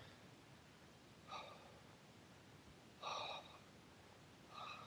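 A person breathing hard after exertion: three heavy breaths, about a second and a half apart.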